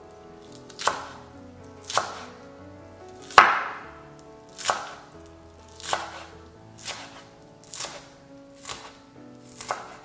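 Chef's knife slicing green onions on a wooden cutting board: nine separate cuts about a second apart, each a sharp knock of the blade against the board, the third the loudest.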